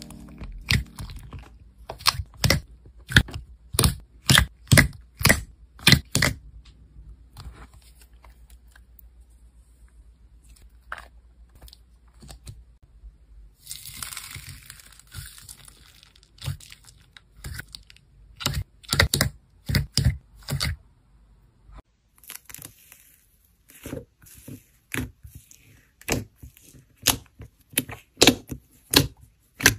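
Slime being squeezed and poked in a tub, giving sharp wet pops and crackles in runs of about two a second, with quieter crackling and a short crinkly rustle in the middle.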